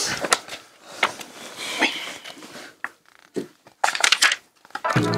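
Stifled, muffled laughter and breathy snorts, broken by a few sharp clicks.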